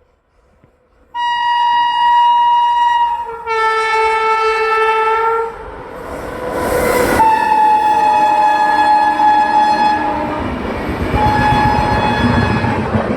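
Indian Railways locomotive horn sounding a series of long, loud, steady blasts, starting about a second in and changing chord between blasts. From about midway the rumble of the train running past sounds beneath the horn.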